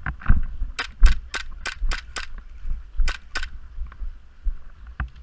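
Gas blowback airsoft pistol firing: six sharp shots about a third of a second apart, a short pause, then two more. A dull bump comes just before the first shots.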